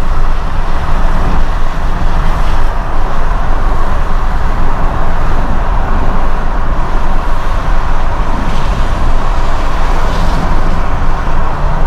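Steady road noise of a car driving, a low rumble of engine and tyres with a dense hiss over it.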